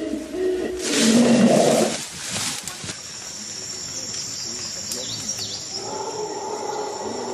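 A gorilla gives one loud, rough roar about a second in, lasting about a second. A thin steady high tone then runs in the background.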